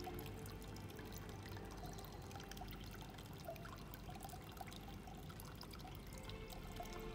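Water trickling steadily down a miniature waterfall in a model nativity scene, with small drips and plinks.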